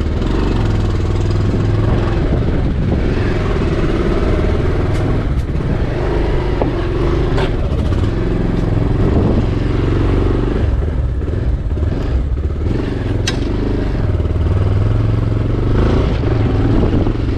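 Motorcycle engine running as the bike is ridden slowly in low gear, with a few sharp clicks along the way.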